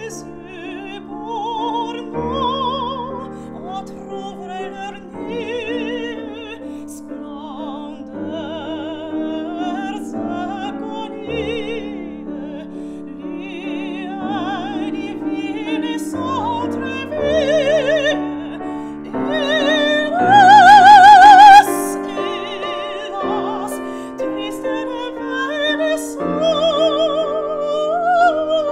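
Female classical singer singing in operatic style with wide vibrato, accompanied by a Steinway grand piano. About twenty seconds in she rises to a long, loud high note, the loudest moment, which breaks off before the phrase continues more softly.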